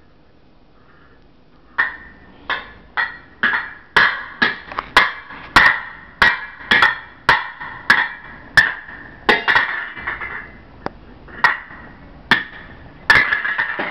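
Pots and pans being banged by a child at play: a run of sharp strikes, roughly two a second, each with a short ring, starting about two seconds in with a brief lull shortly before the end.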